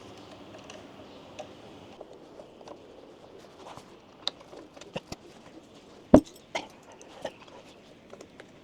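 Scattered light clicks and taps of metal parts and tools being handled on an electric scooter's swing arm, with one sharper knock about six seconds in, as a pivot pin is worked into place.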